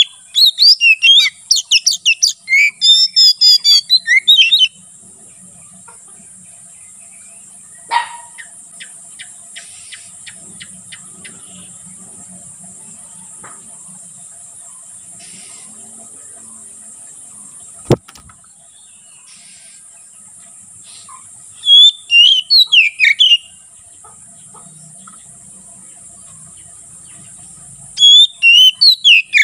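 Oriental magpie-robin (kacer) singing loud, rapid, varied whistled phrases in bursts: a long run at the start, a short phrase about three-quarters of the way in and another near the end. A steady high insect drone runs underneath, with one sharp click about two-thirds of the way through.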